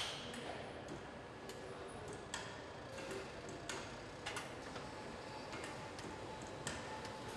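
Car assembly-hall ambience: a steady background hum of the plant with scattered, irregular sharp clicks and clinks of metal parts and tools.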